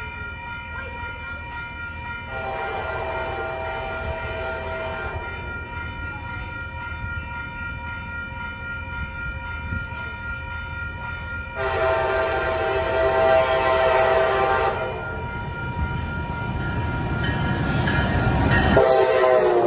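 Amtrak Pacific Surfliner train's horn sounding two long blasts several seconds apart, then a short blast near the end, over the train's rumble that grows louder as it approaches. A faint steady tone sits underneath throughout.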